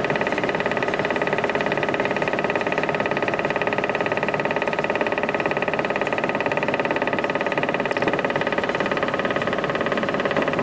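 ŻEFAM DVBA wood chipper-shredder running unloaded, its drive and cutting rotor giving a steady drone with several constant tones.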